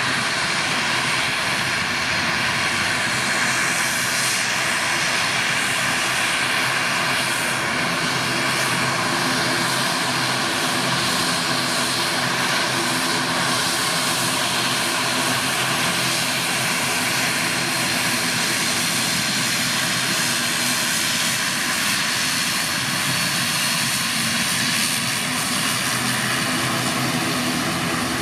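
Twin Pratt & Whitney PW127M turboprop engines of an ATR 72-600 running steadily at taxi power while the aircraft taxis: a constant propeller drone made of many steady tones layered together.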